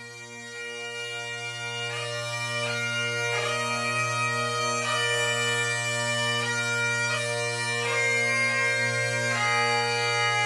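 Bagpipes playing a melody of held notes over a steady drone, fading in over the first few seconds.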